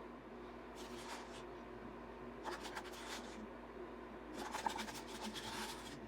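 Short bursts of scraping and rubbing from handling resin cups and tools at the work table: three clusters, about a second in, around the middle, and a longer one near the end, over a steady low hum.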